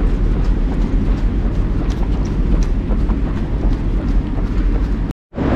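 Steady low rumbling noise of wind and movement on a running trail runner's camera microphone, with faint scattered ticks. The sound drops out completely for a moment near the end, then comes back louder.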